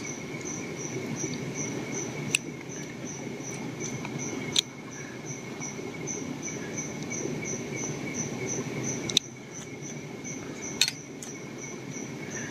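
Insects chirping steadily in a high, even pulse of about four beats a second, with a few sharp clicks over the top.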